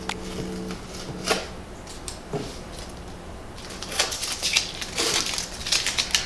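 Green painter's tape being peeled off a glued, mitered wood return piece, crackling in several quick tugs during the last couple of seconds, after a few light knocks as the piece is handled.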